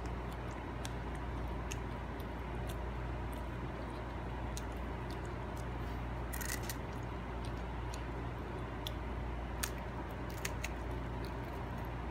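A toddler biting and chewing a SkyFlakes cracker: small, crisp crunches and clicks scattered throughout, with a short cluster about halfway through. A steady low hum runs underneath.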